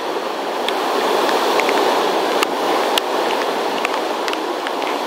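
Hurricane wind and heavy rain making a steady rushing noise, with scattered sharp ticks of raindrops striking the camera.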